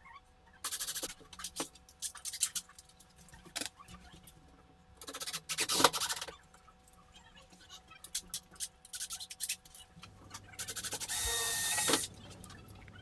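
Cordless drill working into a wooden mounting plate in several short bursts, with one longer run near the end that carries a steady high whine.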